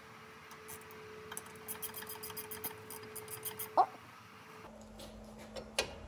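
Ratchet wrench clicking in a quick run of light metallic clicks as a brake caliper bolt is driven in, with a short squeak a little before four seconds in.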